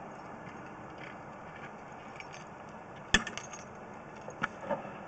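Steady background noise with a few short, sharp clicks or knocks, the loudest about three seconds in and a couple of smaller ones near the end.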